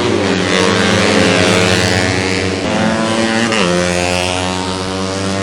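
Several tuned 125cc four-stroke underbone racing motorcycles running at high revs, their engine notes overlapping; the pitch drops sharply twice around the middle as the bikes shift or pass by.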